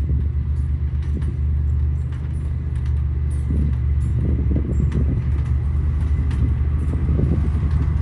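Diesel engine of a Komatsu motor grader running steadily under load, a low drone throughout, as its blade pushes rocky soil. Scattered clicks and crackle of stones ride over the engine.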